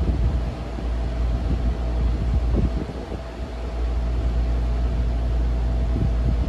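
RAKS DF-12TK desk fan running and oscillating, its motor freshly lubricated: a steady hum with a thin steady whine over a low rumble of moving air, the rumble easing briefly about three seconds in.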